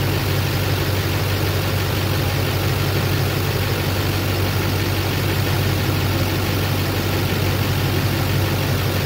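Duramax 6.6-litre V8 turbodiesel idling steadily, heard up close under the open hood. It is left running so the Allison transmission fluid warms up for a level check.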